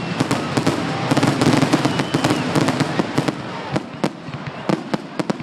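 Fireworks crackling: a dense, rapid run of sharp cracks and pops that thins out toward the end.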